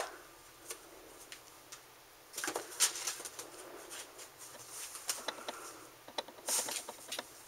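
Kitten pawing and clawing at a corrugated-cardboard scratcher toy: bouts of quick scratching and clicking, about two and a half seconds in, again around five seconds, and loudest near the end.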